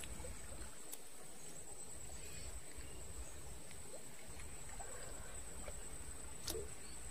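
A steady high-pitched insect trill with a low rumble underneath, and two sharp clicks, about a second in and near the end.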